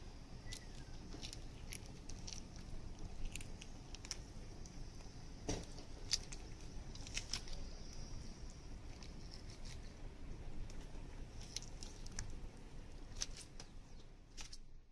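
Skin being peeled by hand from a raw squid mantle, heard as scattered faint wet clicks and crackles over a low steady background rumble.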